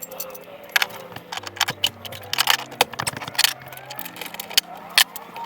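Irregular metal clinks and rattles of wrenches and hardware working on a zero-turn mower's front wheel.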